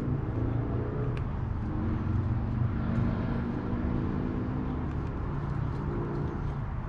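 An engine running with a low, steady hum that shifts slightly in pitch.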